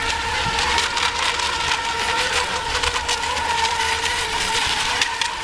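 Several ECO-class electric RC racing boats running at speed across the water: a steady high-pitched whine that wavers slightly as the boats turn, over a constant hiss.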